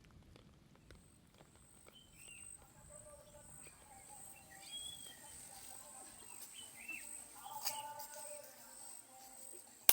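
Faint outdoor ambience with a few scattered bird chirps over a soft background, with light music partly mixed in. A single sharp click comes at the very end.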